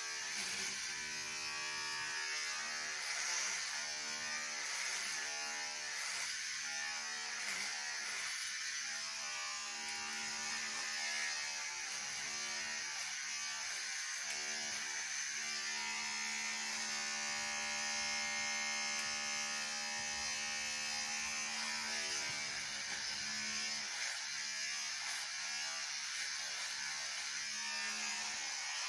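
Cordless electric hair clippers buzzing steadily as they cut hair close to the scalp. The tone wavers as the blades move through the hair.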